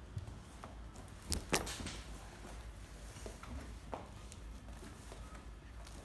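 Rattan-and-silk cooling mat being lifted and folded back by hand: soft rustling with a few light clicks, the loudest two close together about a second and a half in.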